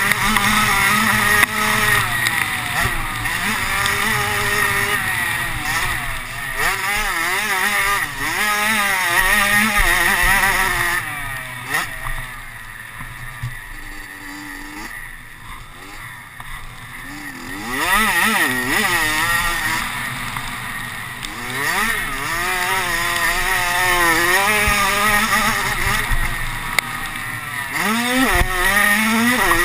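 Off-road racing engine heard on board, revving up and dropping back over and over as the rider works the throttle and gears; the throttle is eased for a few seconds around the middle, then the engine climbs hard again.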